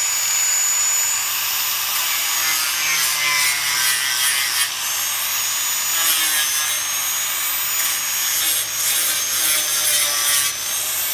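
Handheld electric power sander running against the pickup's painted steel lower door panel: a steady grinding hiss with a thin, wavering high motor whine, briefly dipping twice.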